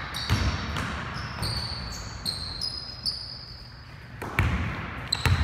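A basketball bouncing on a hardwood gym floor, with high sneaker squeaks in the middle and several sharp thuds near the end.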